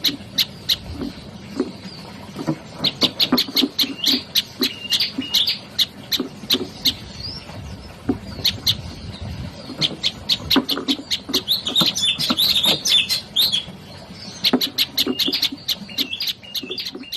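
A prenjak lumut singing: rapid runs of sharp, high chirps broken by short pauses, with a denser twittering stretch about two-thirds of the way through.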